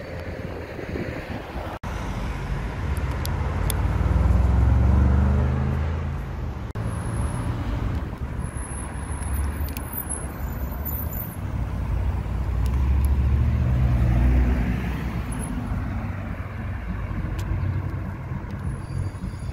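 Performance cars accelerating past on a street, with deep exhaust rumble that swells and fades twice over traffic noise.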